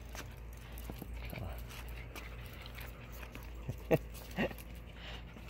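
A dog gives two short yips, about four seconds in and again half a second later, over a low steady rumble.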